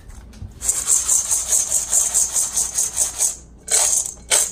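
Dry dog kibble rattling in a stainless steel bowl shaken by hand, a fast run of about seven shakes a second lasting some three seconds, then two shorter shakes near the end.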